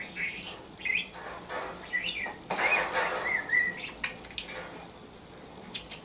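Budgerigar chirping and warbling in short, gliding phrases, with a louder, scratchy run of warble about halfway through and a few sharp clicks near the end.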